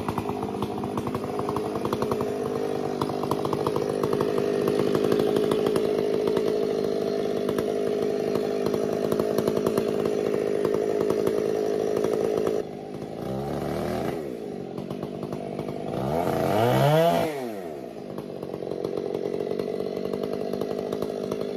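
Two-stroke chainsaw engine running steadily at high speed. About halfway it suddenly drops back, revs briefly, then revs up louder with the pitch rising and falling, and settles back into a steady run.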